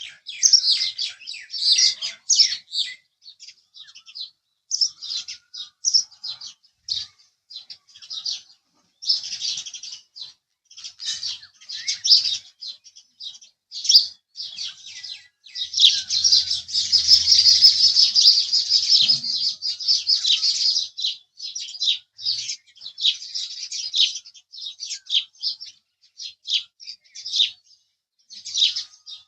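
House sparrows chirping: short, repeated chirps in clusters with brief pauses, thickening into a dense unbroken stretch of chirping from about sixteen to twenty seconds in.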